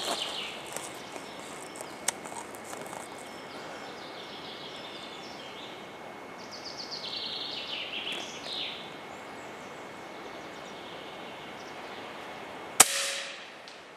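A Hatsan AT44-10 .22 PCP air rifle fires once near the end: a single sharp crack with a short ring after it. Before the shot, songbirds in the surrounding forest sing several short descending trills.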